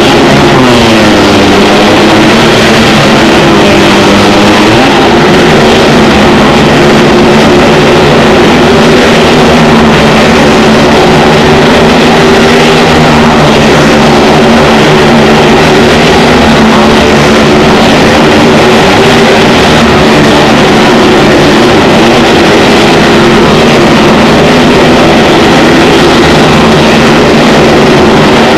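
Motorcycle and car engines running hard together, presumably in a Well of Death stunt show. The sound is very loud and continuous, overloading the recording. The pitch dips and rises in the first few seconds, then holds steady.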